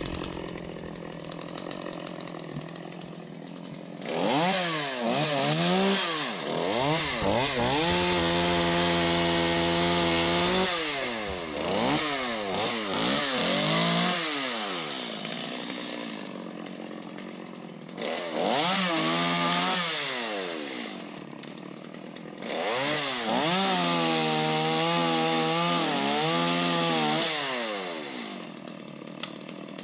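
Two-stroke chainsaw idling, then opened up to high revs in three bursts of several seconds each, dropping back to idle between them. Its pitch holds high and wavers while the chain cuts through wood.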